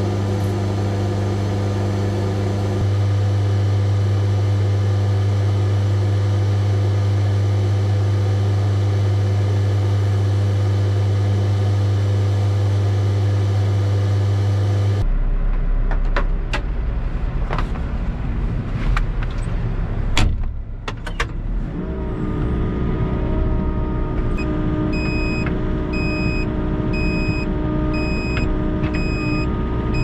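Volvo EC60E mini excavator's diesel engine running steadily, heard from inside the cab, its note rising a little about three seconds in. After an abrupt change about halfway, a few clicks and knocks, then the engine running at a different note with an electronic warning beeper sounding at an even pace near the end.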